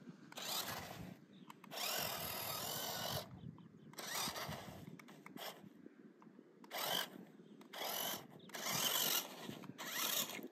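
Toy RC rock-crawler truck's electric motors and gearbox whirring in repeated short bursts as the throttle is pressed and released, about seven times, some bursts with a rising or falling whine.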